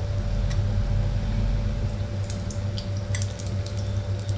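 Four batter-coated potato bondas (batata vada) deep-frying in hot oil: a steady sizzle with scattered sharp crackles, more of them in the second half, over a low steady hum.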